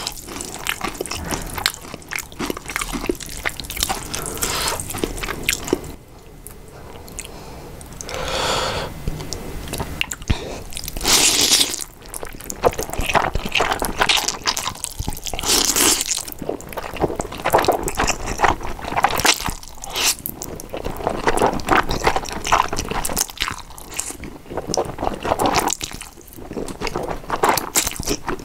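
Close-miked eating of thick, saucy stir-fried instant noodles: wet slurps as strands are sucked in, with a few longer slurps midway, and sticky chewing and mouth smacks between them.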